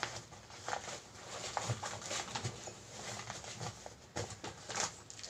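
Rustling and light knocks of things being handled in a cloth bag, as a wallet is packed away.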